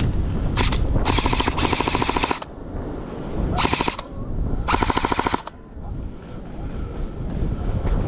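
Airsoft gun firing on full auto in three rapid bursts: a long one of about a second and a half, a short one, then a medium one, each a fast, even rattle of shots.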